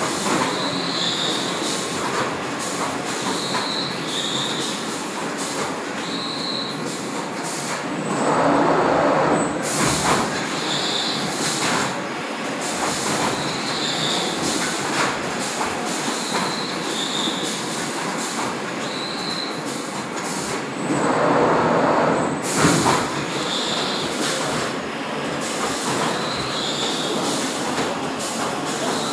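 Automatic oval screen-printing machine for textiles running: steady mechanical noise with short high squeaks every second or two, and two louder surges, about eight and twenty-one seconds in.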